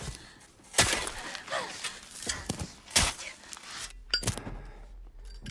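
Shovel blade struck hard into earth several times, each stroke a sharp thud. Near the end the sound drops to a steady low hum with a single sharp click.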